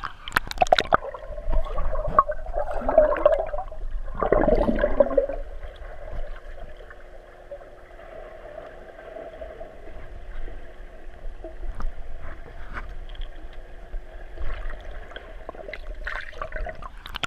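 Swimming-pool water heard from below the surface, muffled as if through a submerged camera: sloshing and gurgling bursts for about the first five seconds, then a steady dull hum with a faint constant tone.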